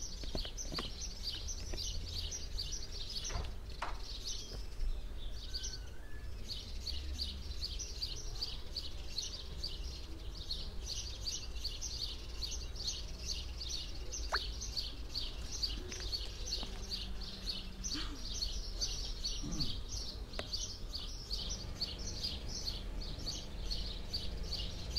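A small bird chirping over and over at an even pace, about three short high chirps a second, over a low rumble.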